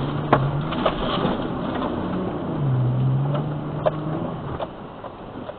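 Off-road SUV engine running with a low, steady drone that fades and comes back, under scattered sharp knocks and clunks.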